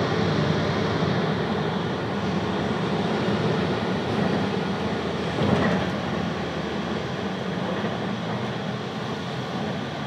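Steady road and engine noise of a moving car, heard from inside the cabin, with a brief louder swell about five and a half seconds in.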